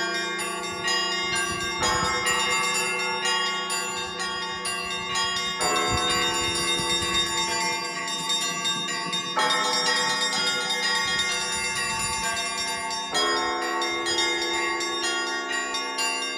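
Russian Orthodox church bells rung by a bell-ringer: quick strikes of smaller bells over a steady low bell hum, with a fresh heavier stroke about every four seconds.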